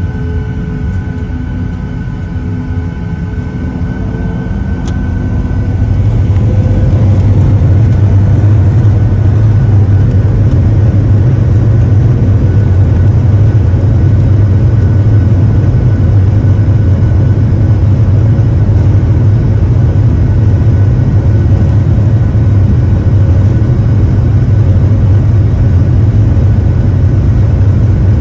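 Jet airliner's engines heard inside the cabin, spooling up to takeoff power with a slightly rising whine over the first six seconds. They then settle into a loud, steady low rumble through the takeoff roll.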